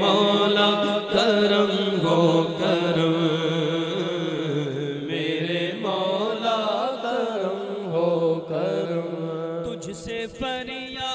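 Man singing a naat (Urdu devotional hymn) into a microphone, holding long drawn-out notes that bend up and down in pitch.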